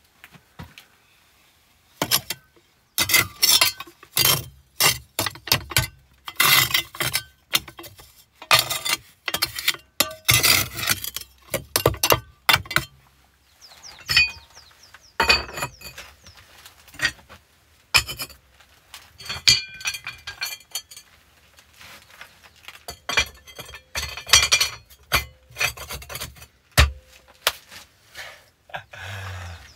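Cast-iron wood-stove parts (grate, hob plate and its rings) clinking and knocking against each other and the brickwork as they are handled and set in place. The strikes are sharp and irregular, many a second in clusters.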